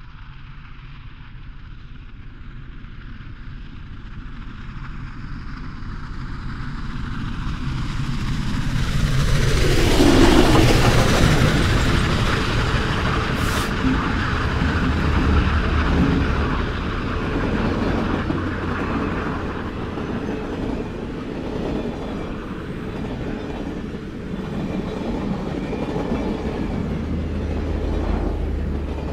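Union Pacific Big Boy No. 4014, a huge articulated steam locomotive, and its train approaching at speed and passing close by. The sound swells to its loudest about ten seconds in, then carries on as a steady low rumble and clatter of the train's wheels on the rails.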